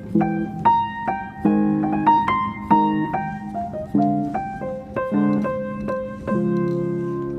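Background piano music: notes and chords struck one after another at a gentle pace.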